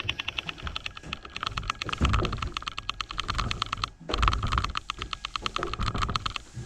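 A damp cloth wiping the plastic inside of a fridge, squeaking and chattering in rapid, even clicks, with a couple of heavier strokes about two and four seconds in.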